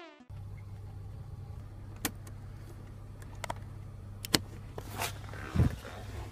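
Steady low rumble of a car's idling engine heard inside the cabin, with several sharp clicks and a soft thump as small things are handled by the dashboard.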